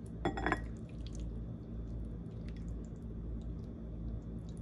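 Herb vinaigrette pouring and dripping from a glass mason jar onto sliced tomatoes and onions, with one brief sharp sound about a third of a second in.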